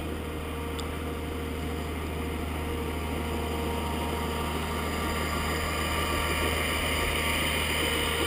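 Snowcat engine running with a steady low drone, growing slowly louder as the snowcat comes closer.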